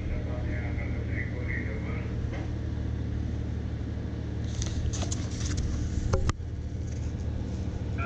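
Paper rustling and crackling as a printed manual's pages are handled and turned, ending in a sharp click, over a steady low machinery hum.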